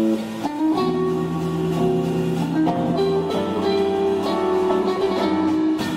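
Live rock band music led by guitar: a held chord breaks off, then the guitar plays a line of changing notes over a steady low note, with a few sharp percussive hits.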